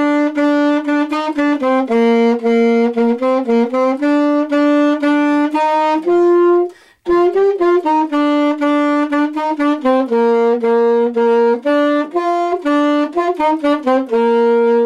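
Saxophone playing a quick beginner's exercise melody solo, a run of short separate notes, with a brief break for a breath about seven seconds in.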